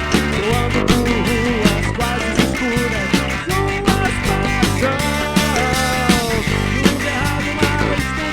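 Live rock band playing: drums and bass guitar under a lead electric guitar melody whose notes bend and slide.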